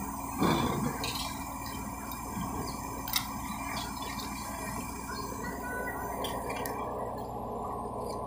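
Steady low drone of heavy construction machinery running, with a brief louder sound about half a second in and a sharp click a little after three seconds.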